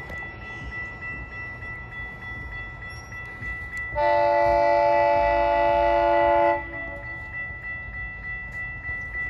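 An approaching GO Transit commuter train's locomotive horn sounds one long, steady chord about four seconds in, lasting about two and a half seconds, over a low rumble from the distance.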